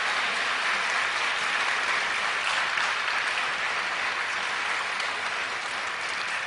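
A large audience applauding steadily, the clapping easing slightly toward the end.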